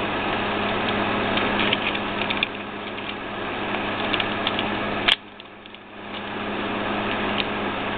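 Plastic Transformers Reveal the Shield Turbo Tracks figure being handled and transformed: steady rubbing and scraping of hands on plastic, with scattered small clicks of parts and joints and one sharp click about five seconds in.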